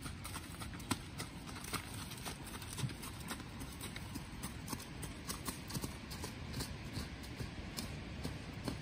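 Hoofbeats of a Drum horse moving around a dirt arena under a rider: a continuous run of soft thuds and sharp clicks, several a second.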